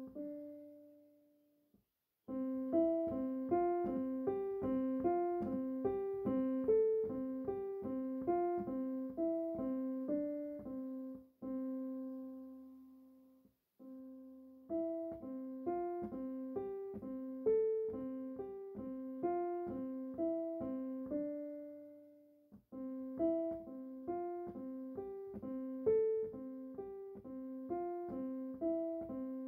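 Solo piano music: a gentle melody over evenly repeated notes, played in phrases separated by brief pauses.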